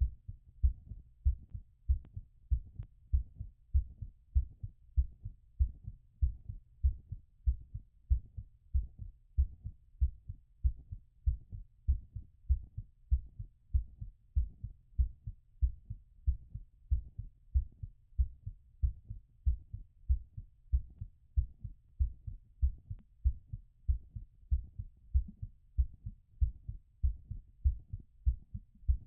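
Human heartbeat heard through a stethoscope during recovery after exercise: a regular train of low lub-dub thuds.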